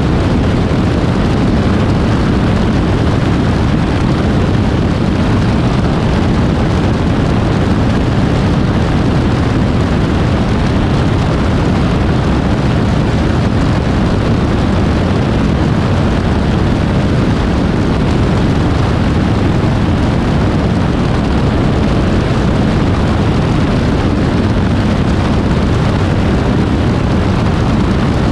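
Steady in-flight noise of an Aeroprakt A22 light aircraft, heard from a camera mounted outside under the wing: wind rushing over the microphone mixed with the drone of the engine and propeller, with no change in level.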